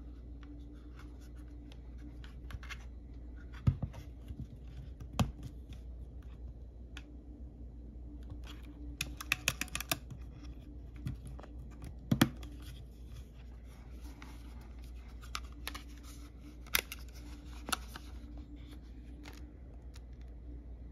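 Handling sounds of a Sony WM-EX808 cassette Walkman: scattered clicks, taps and scrapes of its metal-and-plastic body being turned and pressed in the hand, and of its cassette door being opened. A faint steady hum sits underneath.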